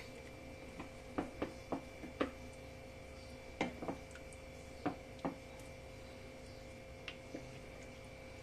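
A spatula stirring rice in watery chicken curry in a nonstick pan, tapping against the pan in irregular light knocks, bunched in the first half and a couple more near the end. This is the rice being mixed into the hot water before the pulao is covered to cook.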